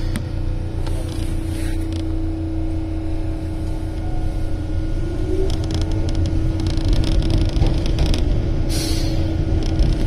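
Keihan 600-series train running, heard from on board. A steady hum and low rumble run throughout, with a faint rising motor whine about halfway through. A quick run of wheel clicks follows as another train passes close alongside.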